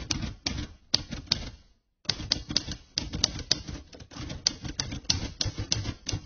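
Typewriter sound effect: a fast, irregular run of key strikes with a short pause about two seconds in, matching text being typed out on screen.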